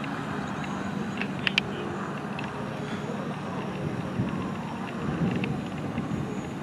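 Steady outdoor background noise, distant road traffic with some wind on the microphone, broken by a couple of sharp clicks about a second and a half in.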